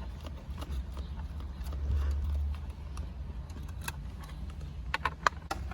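Hand work on a car's shifter assembly: low handling rumble, then a quick run of sharp metallic clicks and knocks near the end as tools and shifter parts are moved.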